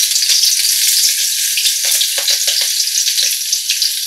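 Chopped ginger and green chillies sizzling and crackling in hot refined vegetable oil in a metal kadai, stirred with a flat metal spatula. A steady hiss runs throughout, with a cluster of sharper pops about two seconds in.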